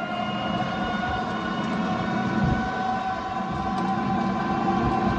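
A moving motorized rickshaw: a steady whine with several even tones over low road rumble.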